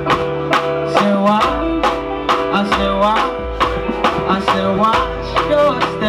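Hip-hop backing track played loud over the sound system between rap verses: a steady beat of sharp drum hits under sustained melodic tones.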